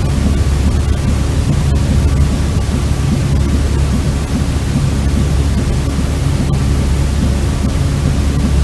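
Steady, unbroken sleep noise with most of its weight in the low end: a deep, even rumbling hiss rather than a bright white hiss.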